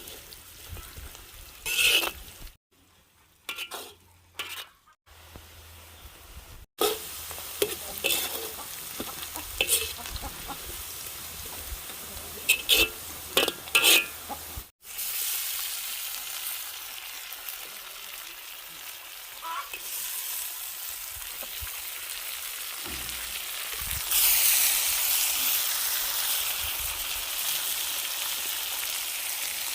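Food frying and sizzling in a pot, with a utensil stirring and knocking against it in the first half. The sizzle then runs steadily and gets louder about three-quarters of the way through.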